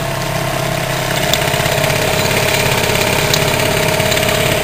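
Dinghy outboard motor running steadily underway, picking up slightly about a second in.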